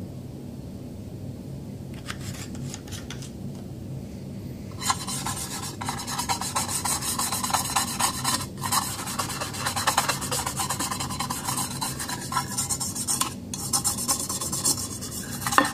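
A bristle brush scrubbing the body of a USGI aluminium rifle magazine. There is a short patch of strokes about two seconds in, then fast continuous back-and-forth scrubbing from about five seconds in, with a few brief pauses.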